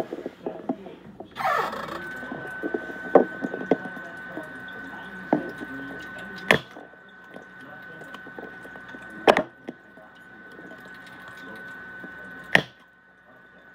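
Eggs being cracked into a bowl: small taps and drips of egg, with three sharp knocks of shell on the rim about three seconds apart. A steady high tone starts about two seconds in.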